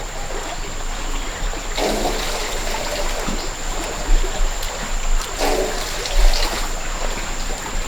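Steady noise of running water.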